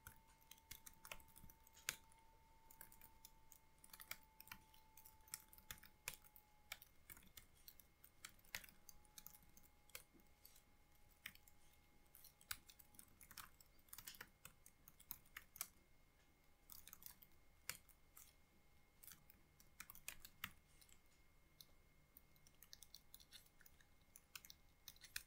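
Faint typing on a computer keyboard: scattered, irregular keystrokes with short pauses between bursts.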